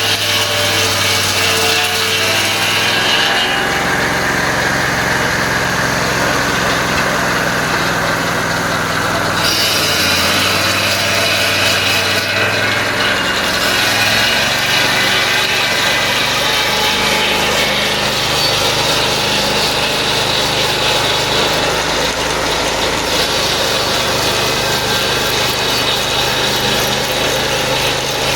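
Band sawmill running steadily, its engine and blade working through wood, with the engine note shifting a few times as the load changes.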